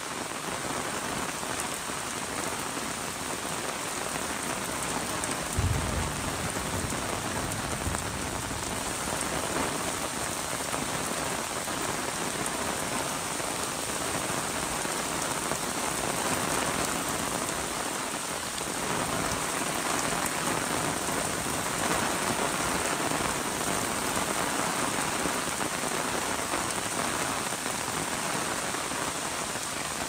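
Steady rain falling on an umbrella and on wet pavement, with one short low thump about six seconds in.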